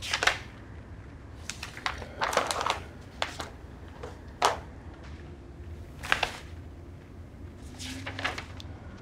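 Paper rustling as the pages of a file are handled and turned: a string of short, separate rustles, about seven.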